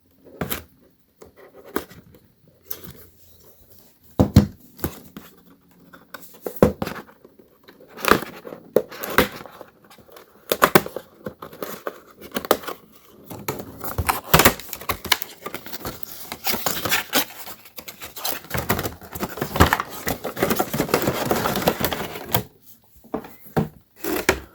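Headset packaging being cut open and unpacked by hand: the tape slit, cardboard flaps and the box handled with scattered clicks, knocks and scrapes, then a few seconds of steady crinkling and tearing near the end.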